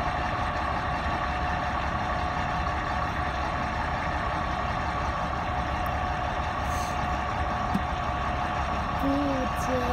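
Vehicle engine idling steadily: a low rumble with a constant hum. A short pitched sound comes in near the end.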